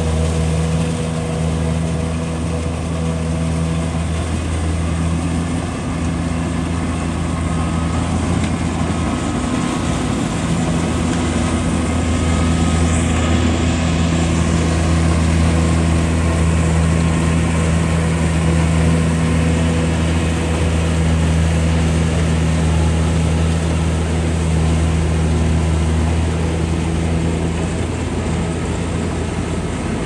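Kubota rice combine harvester's engine running steadily under load as it harvests, a continuous low hum.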